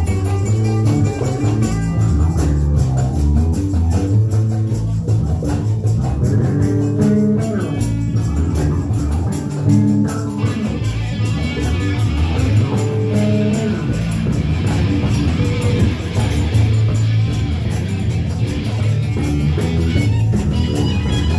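Live electric bass and electric guitar played through amplifiers, with steady, sustained low bass notes under the guitar and no drum kit. About halfway through, a brighter, hissier layer comes in on top.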